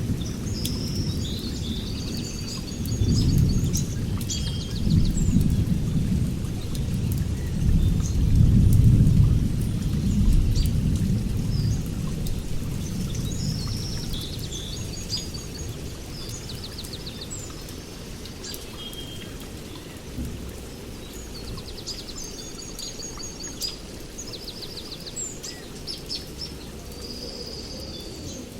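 Songbirds singing short trilled phrases again and again, over a steady hiss and a deep rolling rumble. The rumble swells through the first third and then dies away.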